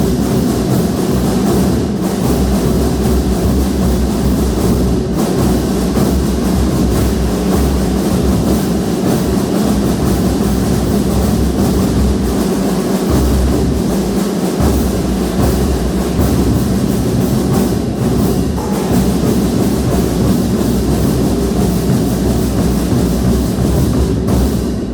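Marching band drum section playing continuously, dense snare and bass drum strokes.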